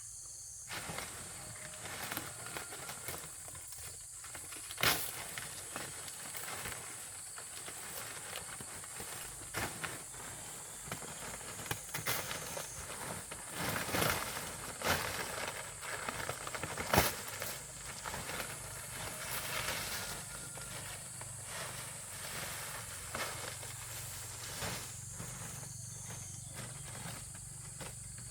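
Scattered rustling, crackles and sharp knocks of hands-on work, the loudest near 5 s and 17 s, over a steady high-pitched drone of insects.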